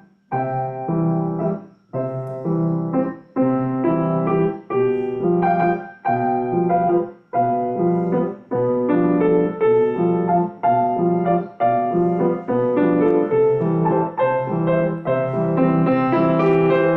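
Piano playing a simple waltz in three time: a bass note then two chord strikes under a melody, boom-cha-cha. The sustain pedal goes down on beat one and comes up on beat three, so the sound clears briefly at the end of each bar.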